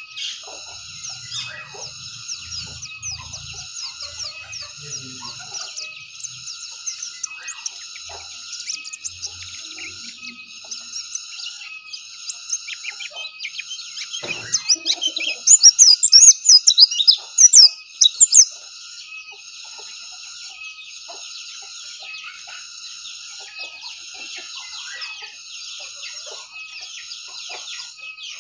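White-eye (pleci) singing a loud, rapid, high warbling burst of a few seconds about halfway through, over a steady background of high chirping notes that repeat about once a second.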